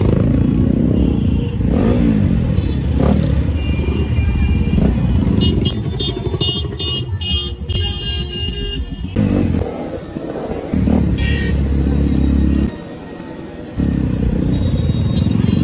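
Motorcycle engine being revved in bursts in slow street traffic, its pitch rising and falling with each blip of the throttle. The engine drops away briefly near the end, then picks up again.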